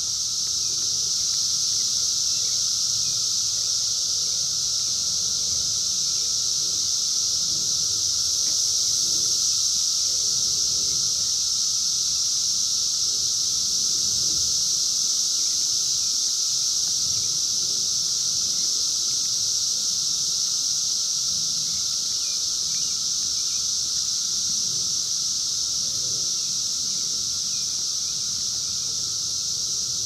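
Chorus of Brood X 17-year periodical cicadas (Magicicada): a loud, steady, high-pitched drone that never lets up, with a fainter lower steady tone beneath it.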